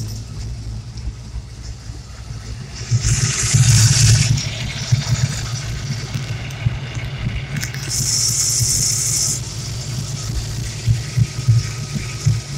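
Ford 351 Windsor small-block V8 idling with a steady low rumble, broken twice, about 3 and 8 seconds in, by a second-long burst of hiss. The owner suspects a vacuum leak from a torn brake booster diaphragm.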